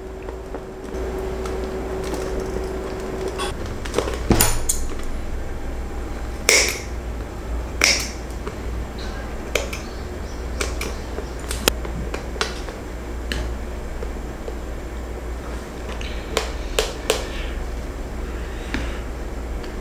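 Clear PVC vinyl sheet being handled and flexed, giving scattered sharp crinkles and clicks, a few louder ones, over a low steady hum.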